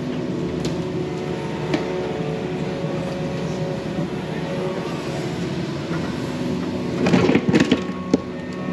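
Yanmar mini excavator's diesel engine running steadily under load, with a burst of crunching and cracking about seven seconds in as the bucket breaks into the dam's dirt.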